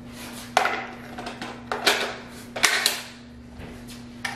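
A few sharp plastic clicks and knocks as a Milwaukee cordless nailer and its battery are handled, the battery snapping into the tool.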